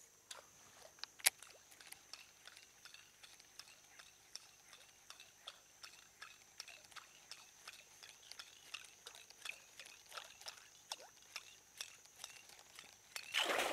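A topwater fishing lure being twitched back across the water, making a run of light clicks and small splashes about three times a second, with a steady high thin whine behind. One sharper click comes about a second in.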